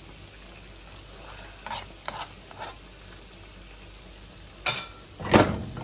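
Chicken kababs sizzling gently in cream in a pan on a low flame, with a cooking utensil knocking and scraping against the pan several times, the loudest knock near the end.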